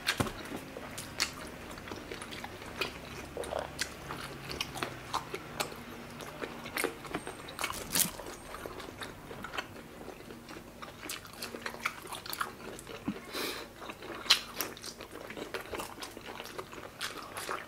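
Boiled shrimp shells being cracked and peeled off by hand: scattered small crackles and clicks, with wet chewing between them.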